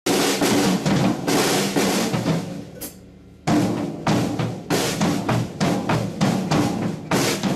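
Acoustic drum kit being played: a busy beat of kick, snare and cymbals. About three seconds in the playing stops and rings out for half a second, then a steady beat starts again.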